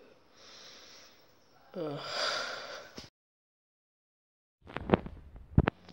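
A breathy, wordless vocal sound with a falling pitch, cut off abruptly, then after a dead-silent gap a few sharp clicks and knocks near the end.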